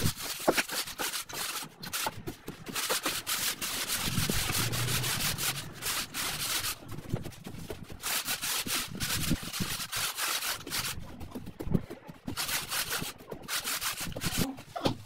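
A wooden screed board scraped across a sand-and-cement floor bed in long gritty strokes, with a couple of short pauses between passes.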